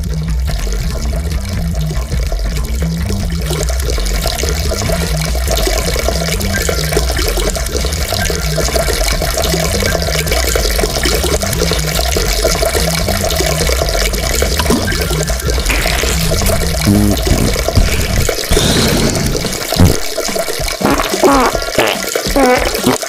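Rushing water of a toilet flush over a repeating low pulsing beat. About three-quarters of the way through, the beat drops out and short gliding tones come in.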